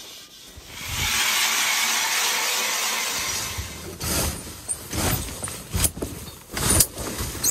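Handling noise while getting into a pop-up ice-fishing shelter. A long rasping hiss of nylon fabric runs for about two and a half seconds, then comes a run of short knocks and rustles from the fabric walls and aluminium poles.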